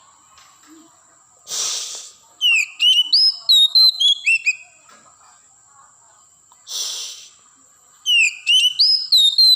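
Oriental magpie-robin singing: a short harsh rasping note followed by a quick run of loud, clear whistled notes that slide downward, the phrase given twice.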